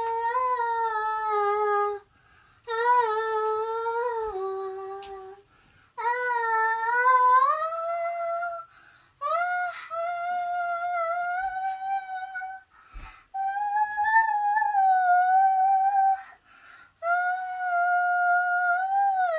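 A young girl singing unaccompanied: a slow tune in about six long, held phrases with short breaths between them, the later phrases pitched higher than the first ones.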